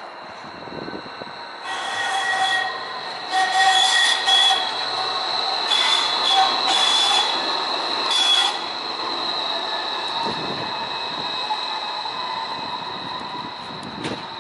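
Tacoma Link streetcar wheels squealing against the rails in repeated loud surges for several seconds. The car then runs on more quietly. A steady high whine runs under it throughout.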